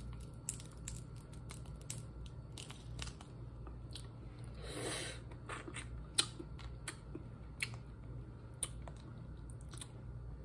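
Close-up eating sounds: boiled shellfish shells cracked and peeled by hand in many small sharp clicks and crackles, with chewing and a longer sucking sound about halfway through.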